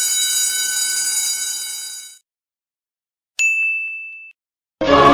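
Sound-effect chimes. First a shimmering bell-like chime of many high ringing tones fades away over about two seconds. A second later comes a single bright 'ding' for a light-bulb idea, which rings briefly. Near the end a sung choir chord starts.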